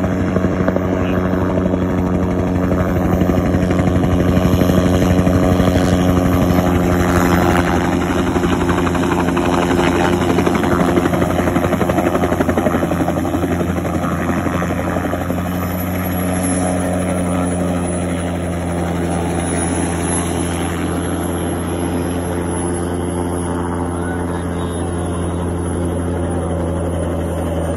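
Helicopter running close by, its rotor giving a steady, even stack of low tones; a little louder for the first dozen seconds, then slightly quieter. A thin high whine wavers above it in the second half.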